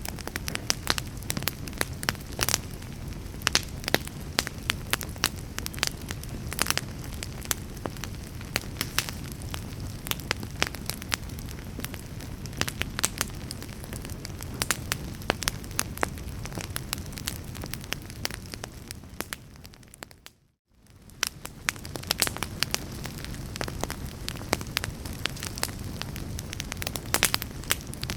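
Wood fire burning: frequent sharp crackles and pops scattered irregularly over a steady low rushing. About twenty seconds in the sound fades almost to nothing, then comes straight back.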